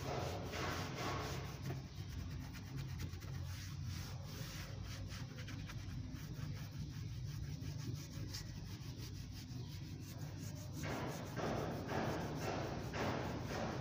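Applicator pad rubbed back and forth over a car's plastic windshield cowl grille, working trim restorer into the plastic: rhythmic scrubbing at about two strokes a second, fainter through the middle and louder again near the end.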